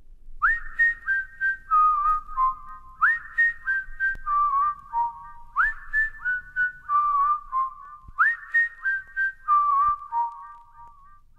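A whistle-like tune, the same short phrase repeated four times about every two and a half seconds. Each phrase sweeps up to a high note and then steps down through several lower notes.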